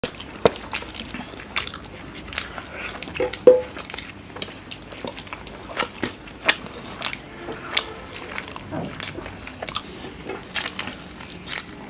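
Close-up eating sounds: biting and chewing food, with irregular sharp crunches about once or twice a second.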